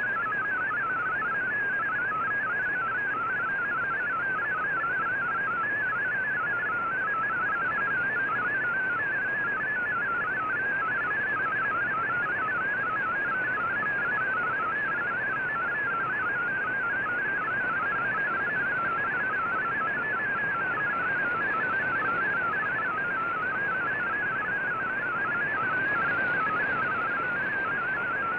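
MFSK digital data signal received on shortwave: a warbling stream of rapidly hopping tones over steady radio hiss.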